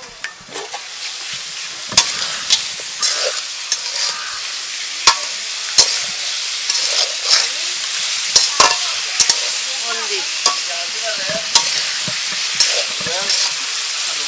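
Beef curry sizzling and frying in oil in an aluminium pot, the sizzle swelling over the first couple of seconds as the lid comes off. A flat metal spatula stirs and scrapes through the meat, knocking sharply against the pot at irregular intervals.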